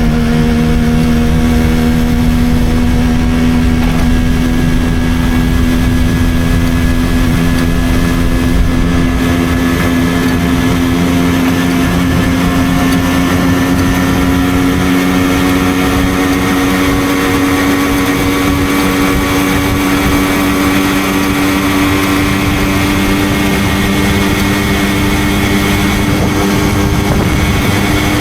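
Simson moped's single-cylinder two-stroke engine running steadily at cruising speed, its pitch rising slowly as the moped gathers speed.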